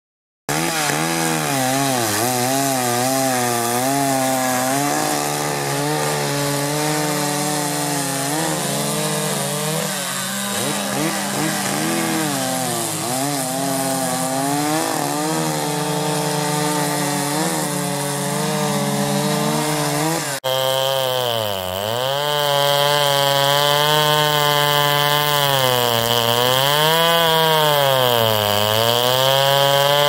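Two-stroke chainsaws running and cutting wood, the engine note wavering and dipping as the chain loads in the cut. About twenty seconds in the sound breaks off abruptly, and a saw's note swings down and back up several times in slow waves.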